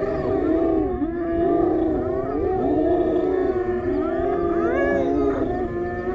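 A pack of spotted hyenas calling together as they mob a lion: many overlapping calls, each rising and falling in pitch, in a continuous clamour.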